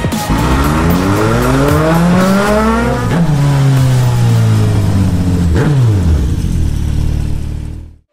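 Vehicle engine revving, its pitch climbing and then dropping as it speeds past about three seconds in, with another quick pass near six seconds, over music; the sound fades out just before the end.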